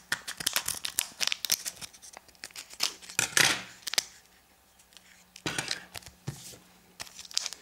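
Foil Pokémon booster pack being cut open with scissors: a run of small snips and crinkles, a louder rustle of the wrapper about three seconds in, then more snips near the end.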